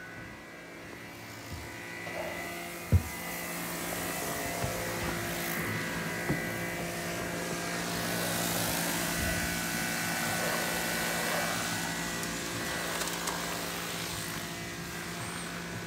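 Gas-engine pressure washer running steadily, growing louder as the camera nears it, with a hiss of water spray through the middle. A single sharp knock about three seconds in.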